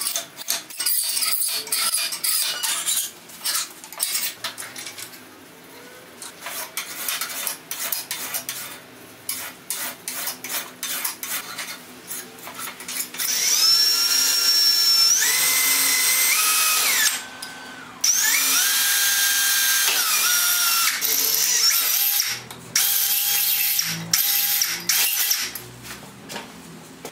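Hand file scraping in repeated strokes across the edge of a thin metal plate held in a vise. About halfway through, a Milwaukee cordless drill takes over and bores two holes through the plate, its motor whine stepping up and down in pitch and stopping briefly between runs.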